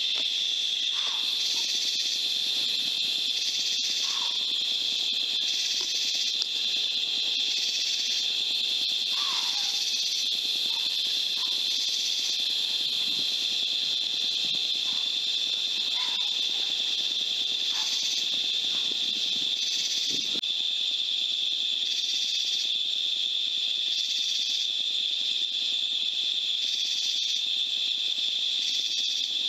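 Steady, high-pitched insect chorus, its drone swelling in pulses every second or two, with a few faint short chirps.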